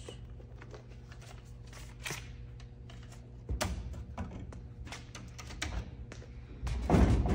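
Scattered clicks and taps of fingers pressing the keypad buttons on a snack vending machine, over a low steady hum. A louder thump comes near the end.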